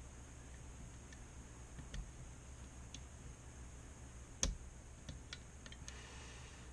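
Lock pick and tension wrench clicking faintly inside a Schlage Primus high-security lock core while the pins are worked, with one sharper click about four and a half seconds in and a quick run of clicks near the end as the core is picked open.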